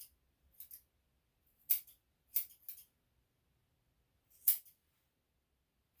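Grooming scissors snipping through a Yorkshire Terrier/Pomeranian cross's leg fur: about five short snips at uneven intervals, the loudest about four and a half seconds in.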